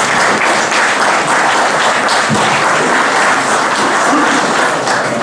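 An audience applauding steadily, a dense patter of many hands clapping together.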